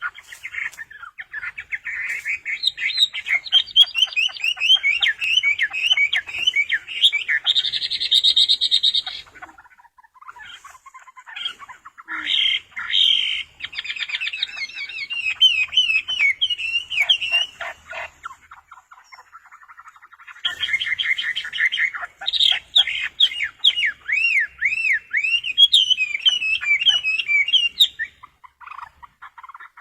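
A songbird singing long, fast, varied phrases of quick rising and falling whistled notes, with short lulls about ten and nineteen seconds in.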